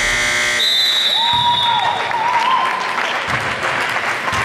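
Basketball crowd clapping and cheering in a gym, with scattered shouts. A steady buzzer-like tone cuts off about half a second in.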